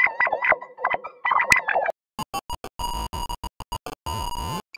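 The meme trumpet tune in two edited versions. First it is processed to sound as if blown inside a washbasin. About two seconds in it switches to an 8-bit chiptune rendering: a run of short electronic bleeps, then longer held notes.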